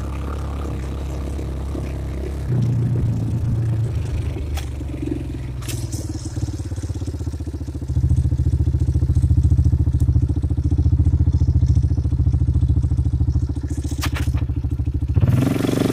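ATV engine running while the quad drives along a dirt trail; the engine gets louder, as with more throttle, about two and a half seconds in and again about eight seconds in.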